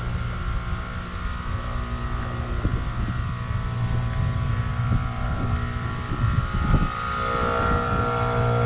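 Trane Odyssey heat pump outdoor unit running with a steady deep compressor hum, a few scattered knocks and clicks in the middle, and a steady higher tone that grows louder near the end.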